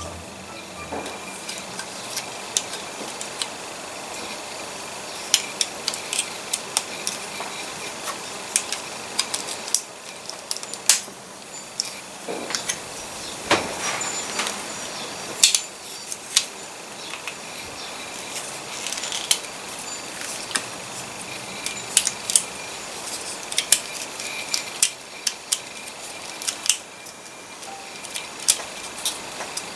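Hard plastic parts of a 1/60 scale Gundam Exia model kit being handled and pressed together: irregular sharp clicks and snaps, some in quick clusters, over a steady background hiss.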